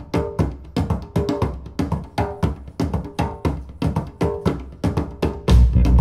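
Recorded music played through Revel F226Be loudspeakers, picked up by a binaural dummy head. It opens with a quick, sparse pattern of sharp percussive hits with short pitched notes, about three a second. About five and a half seconds in, a louder, fuller passage with heavy bass takes over.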